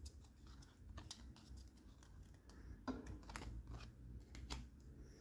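Faint scattered clicks and ticks of a stack of Magic: The Gathering cards being handled, the cards tapping and sliding against each other.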